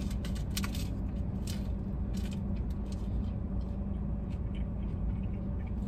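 A person chewing a mouthful of fried chicken sandwich and handling its paper wrapper, with scattered short crackles and clicks, over a steady low hum inside a car's cabin.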